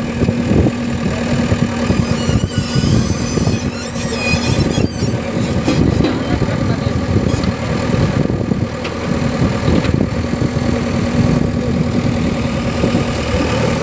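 Heavy diesel engine of construction machinery running steadily at low revs, with a steady hum.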